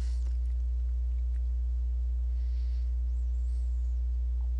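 Steady low electrical hum, like mains hum picked up by the recording setup, with no other sound of note.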